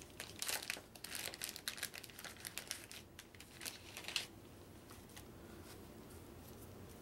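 Clear plastic wrapper on a stack of game cards crinkling and crackling as it is handled and pulled open. The crackles come thick and uneven, then stop about four seconds in.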